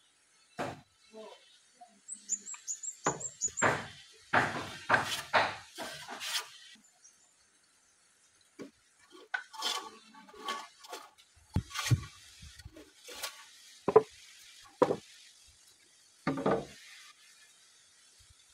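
Teak planks being handled and fitted together: irregular wooden knocks, thumps and scrapes. A short run of high chirps comes about two seconds in.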